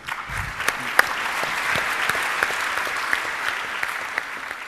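Audience applauding, starting abruptly and fading out toward the end.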